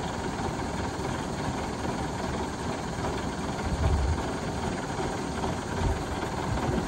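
Crane truck's engine idling steadily, with two brief low bumps, one about four seconds in and one near the end.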